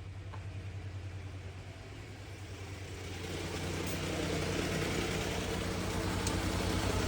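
The engine of a 1992 Itasca Spirit motorhome running steadily, freshly brought back to life after a fuel tank and fuel pump replacement. It gets gradually louder from about three seconds in.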